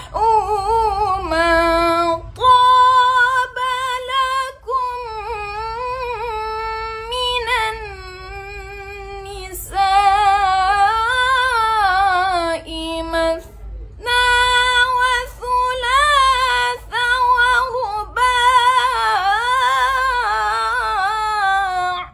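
A woman's unaccompanied Qur'an recitation in the melodic tilawah style. Long held phrases wind and waver in pitch through ornamented runs, with short pauses for breath between them.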